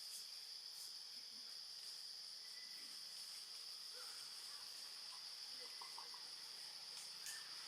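Steady high-pitched insect drone, with a few faint short chirps and a couple of soft clicks near the end.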